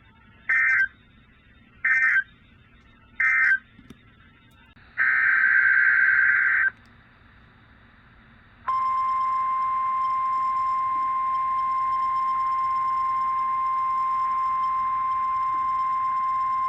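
NOAA Weather Radio test signals: three short bursts of SAME digital data warble, the end-of-message codes closing one test, then a longer data burst, then the steady 1050 Hz warning alarm tone held for about nine seconds.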